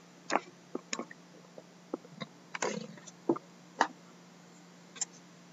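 Scattered light taps, knocks and a brief scrape as a sealed cardboard hobby box of trading cards is handled and turned over on a wooden desk, over a faint steady hum.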